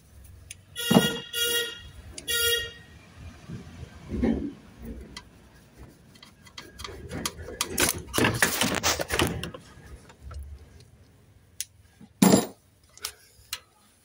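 Three short car-horn beeps in the first few seconds. Then scraping, knocking and clicking of pliers working corroded wire terminals free, with a sharp click near the end.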